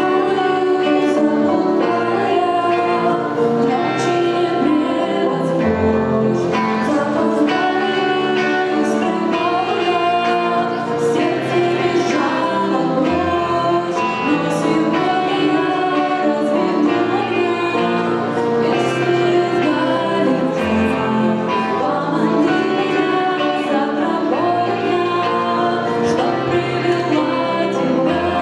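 Live song played on electric guitar and keyboard, with singing over the music.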